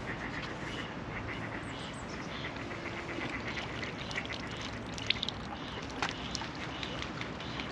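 Ducks quacking over steady lakeside background noise, with a couple of sharp clicks about five and six seconds in.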